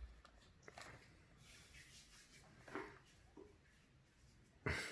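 Quiet room with faint, scattered rustling and handling noises, and a brief louder sound just before the end.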